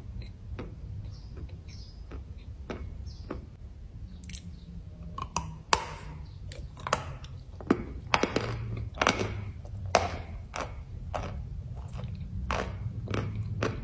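Chalk being bitten and chewed close to the microphone: irregular sharp crunches, sparse at first, coming thicker and louder from about five seconds in.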